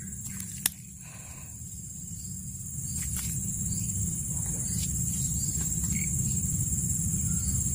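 Insects trilling steadily at a high pitch over a low rumble that grows gradually louder, with one sharp click just under a second in.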